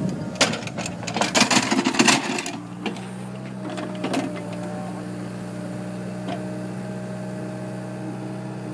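Excavator engine and hydraulics running at a steady drone. In the first couple of seconds there is a burst of crunching and knocking as the bucket works the soil, after which only the engine drone remains.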